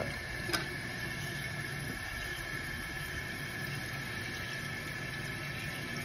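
New toilet fill valve refilling the tank: a steady hiss of water running in. A single light click about half a second in.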